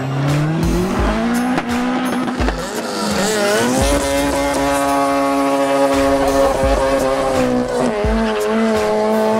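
Race-tuned car engines at full throttle on a drag-strip run, the note climbing and then dropping at each gearshift, about three seconds in and again near the end.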